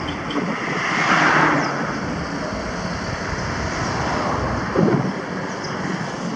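Wind rushing over the microphone of a moving bicycle, mixed with road traffic noise, swelling about a second in, with a brief louder thump near the end.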